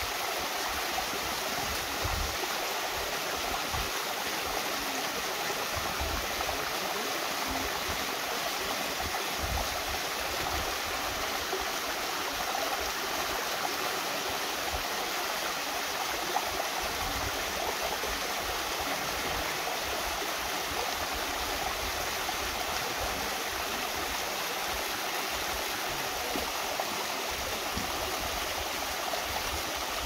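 Mountain stream rushing steadily over a small waterfall and rocky cascade.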